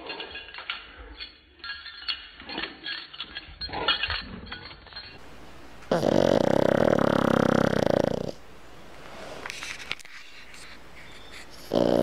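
A pug snoring loudly: two long snores of about two seconds each, the second starting near the end. Before them come a few seconds of light clicks and scuffles.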